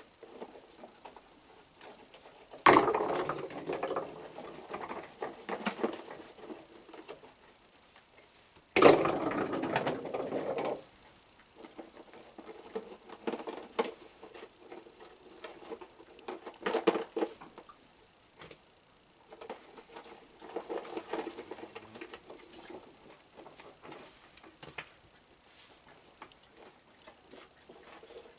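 Hands rummaging through a plastic tub of cookies and hot dog pieces: two loud rattling, rustling spells of a couple of seconds each, about 3 and 9 seconds in, then softer scattered clicks and rustles.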